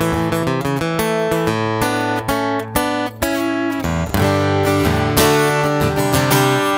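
Breedlove Pursuit Exotic acoustic guitar, with a myrtlewood top and myrtlewood laminate back and sides, played solo. It starts with quick picked single notes and chords and changes to fuller strummed chords about four seconds in.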